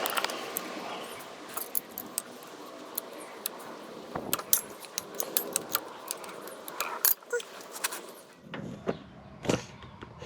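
Irregular light metallic clicks and clinks of drum-brake springs and hardware being handled and fitted, with a few duller knocks near the end.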